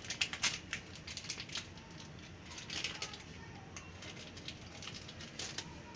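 Faint, scattered patter and light ticks of a hand dropping broken pieces of cheddar cheese onto chopped vegetable toppings, in a few short runs.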